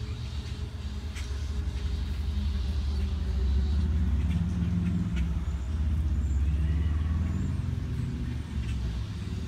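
Low steady rumble of a motor vehicle engine, swelling about three seconds in and easing off toward the end, with a few faint high chirps above it.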